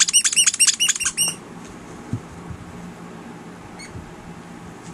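A dog's squeaky toy squeaking in a fast, even run of short high squeaks, about seven a second, that stops about a second and a half in. After that only a faint squeak is heard near the end.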